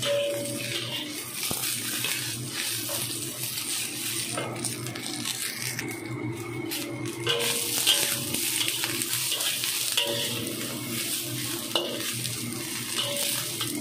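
Snow peas and carrot slices sizzling steadily in a hot wok, stirred and tossed with a metal spatula that scrapes and clinks against the pan.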